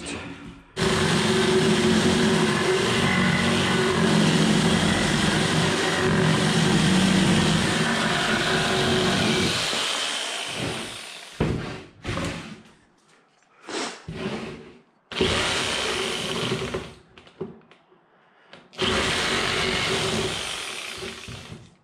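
Corded reciprocating saw cutting through pallet-wood 2x4s: one long run of about nine seconds, then several shorter runs with stops between them as each cut is finished and the next begun.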